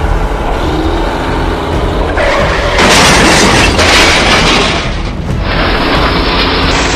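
Deep booming rumble of action-film sound effects mixed with music, with a loud noisy crash-like burst from about two to five seconds in.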